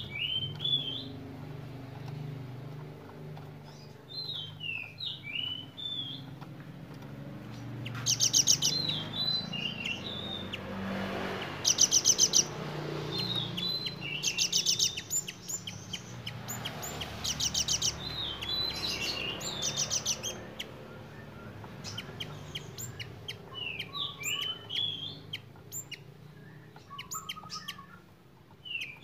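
Cinereous tit (gelatik batu) singing a sharp song of quick chirps and whistled notes, broken by several bursts of very fast, high ticking trills that are the loudest parts. Its song is filled with learned imitations of bar-winged prinia (ciblek) and velvet-fronted nuthatch (rambatan) calls.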